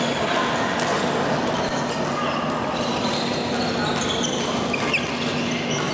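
Busy badminton hall din: scattered sharp racket-on-shuttlecock strikes and footfalls from the surrounding courts over a steady wash of background voices, with a few short high squeaks about four to five seconds in.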